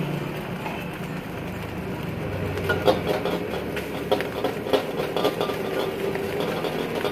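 Metal ladle and spatula scraping and clanking against a steel wok while rice and egg are broken up and stirred for fried rice, the strikes starting about three seconds in and coming irregularly several times a second over a steady rushing background.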